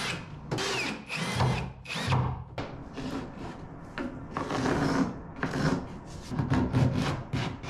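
Cordless drill driving screws into a wooden frame in short bursts, its motor whine rising and falling, during the first two seconds. After that comes a run of short scraping and knocking strokes of wood being worked by hand.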